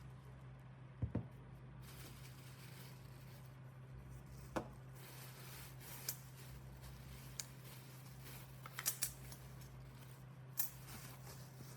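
A few scattered short clicks and knocks of parts of an old hammer drill being handled, over a steady low hum.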